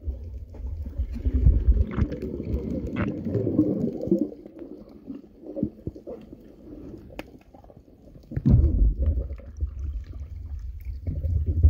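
Muffled underwater sound picked up by a phone held below the surface: low rumbling and gurgling water movement that surges at the start and again past the middle, with a few scattered clicks.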